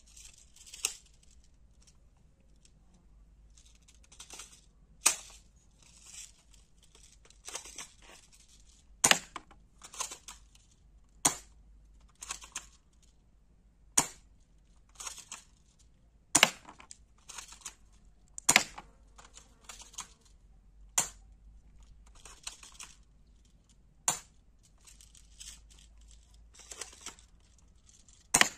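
Cheap toy MP40-replica BB gun being cocked and fired one shot at a time: about ten sharp snaps, two to four seconds apart, with short rasping scrapes of the cocking action between shots.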